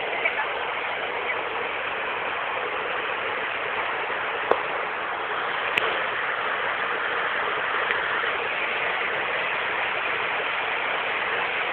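Waterfall water rushing steadily, with a couple of brief clicks near the middle.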